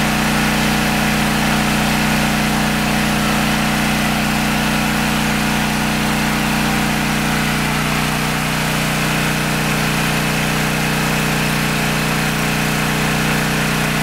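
Briggs & Stratton Elite Series 8000-watt portable generator's engine running steadily on propane under heavy electrical load, an even, unchanging drone. It is running much smoother on propane than it does on gasoline.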